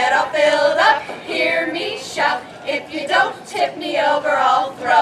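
A group of women singing together.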